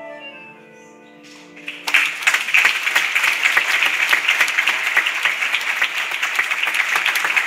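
The last chord of a grand piano dying away, then audience applause breaking out suddenly about two seconds in and carrying on strongly.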